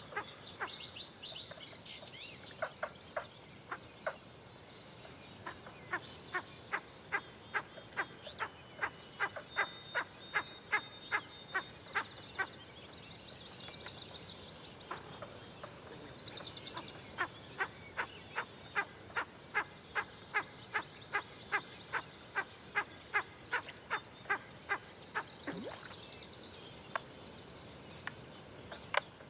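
An animal call made of short clicking notes, repeated evenly about two a second in two long runs, with songbirds trilling at intervals over it.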